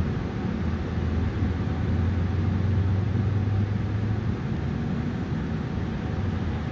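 Cummins L9N natural-gas engine of a New Flyer XN40 city bus idling while the bus stands still, heard from inside the passenger cabin: a steady low hum that swells for a few seconds and then eases back.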